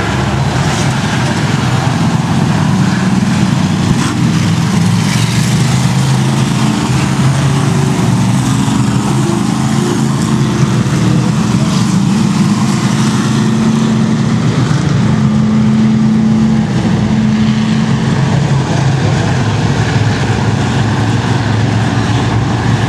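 Rookie stock cars racing on a short oval track: a loud, continuous drone of several engines at speed. Individual engine notes come and go as cars pass.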